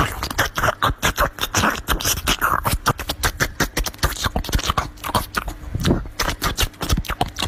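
Rapid, irregular clicking and clattering of forks and spoons on plates, sped up as the meal is fast-forwarded, several clicks a second.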